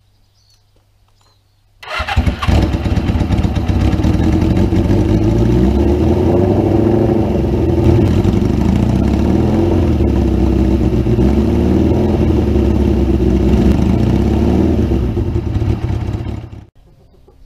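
Suzuki GS550 air-cooled four-cylinder motorcycle engine catching about two seconds in and then running steadily and loud, until it cuts off abruptly near the end.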